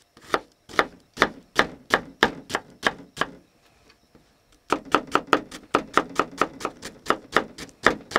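A small paring knife chopping shallot on a chopping board, mincing it: a steady run of sharp knocks at about two or three a second, a short pause, then a quicker run of chops.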